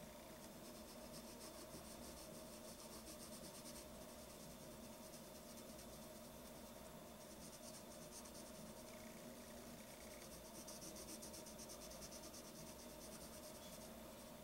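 Faint scratch of a wooden graphite pencil shading on paper: quick back-and-forth strokes in two runs of a few seconds each, with a pause of a few seconds between them.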